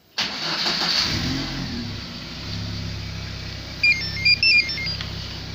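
VAZ-2112 car engine remote-started by its StarLine A9 alarm: it starts suddenly, runs unevenly for a second or two, then settles into a steady idle. This shows the remote start now works with the reseated starter relay. About four seconds in, a short electronic beeping tune plays over the idle.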